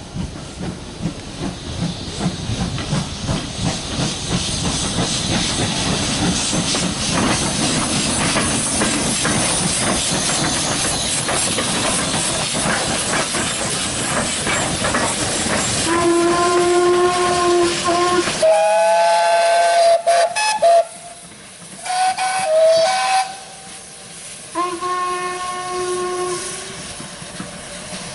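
Steam locomotive working, with heavy steam hiss and rhythmic exhaust beats, then a series of whistle blasts at two different pitches in the second half.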